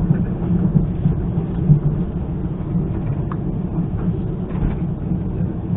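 ЭШ2-001 electric train running at speed, heard from inside the car: a steady low rumble of the wheels and running gear, with a few brief louder bumps.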